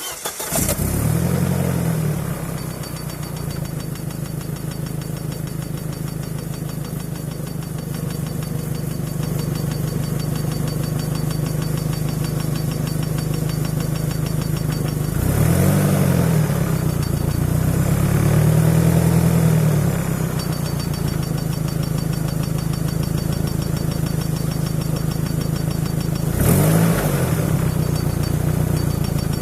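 Volvo S40 T4's turbocharged engine idling, revved briefly about a second in, again around the middle in two longer pulls, and once more in a short blip near the end. A faint high-pitched whistle rides over the idle and disappears whenever the engine is revved; this is the strange noise the owner cannot identify.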